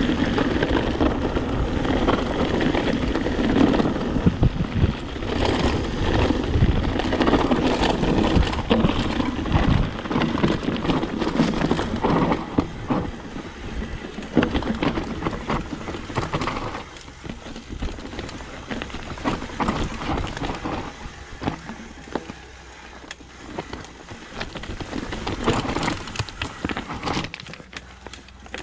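Mountain bike rolling down a rough, rocky trail: tyres crunching over stones, with a constant clatter of rattles and knocks from the bike. It is louder and rougher over the first half and eases off past the middle.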